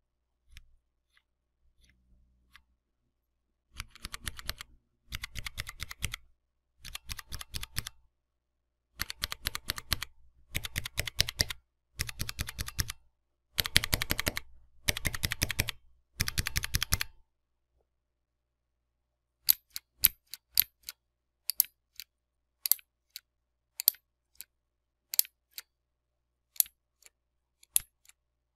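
Mechanical keyboard keys pressed in quick runs of clattering keystrokes, about eight runs of a second or so each, then from about two-thirds in, single keys pressed one at a time with sharp separate clicks.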